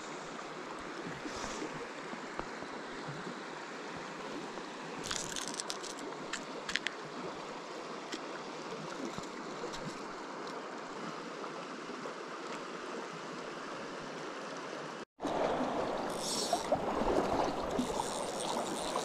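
River water running steadily over a shallow rocky bed, with a few light clicks about five to seven seconds in. After a brief dropout about fifteen seconds in, the water sounds louder and closer.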